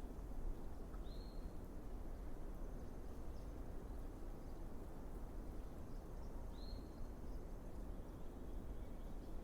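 Two short high-pitched bird calls, each a quick upward slur that levels off, about five and a half seconds apart, over a steady low background rumble.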